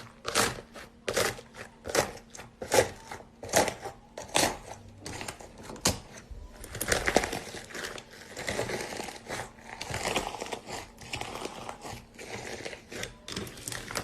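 Slime being played with by hand: a string of sharp sticky pops, about two a second for the first few seconds, then a denser crackly squishing.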